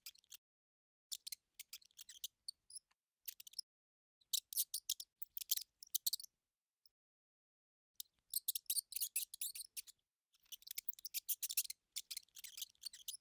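Mouse sound effect: several bursts of rapid, high-pitched scratchy clicking and squeaking, each up to about two seconds long, with silence between them.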